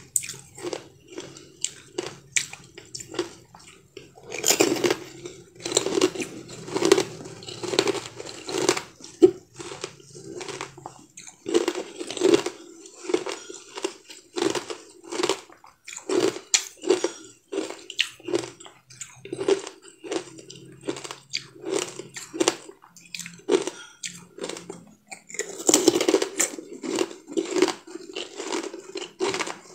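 Close-up crunching and chewing of a hard, translucent round treat, bite after bite in quick short crunches. The crunching gets busier and louder a few seconds in and again near the end.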